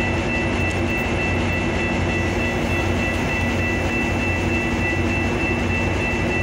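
Metra diesel locomotive's engine running steadily close by: a loud, even drone with a constant high whine over it.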